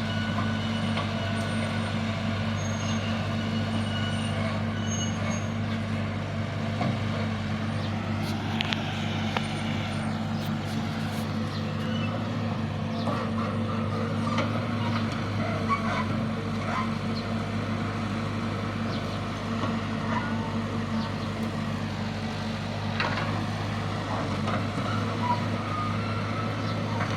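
Heavy machinery engine running steadily, with scattered clanks and knocks.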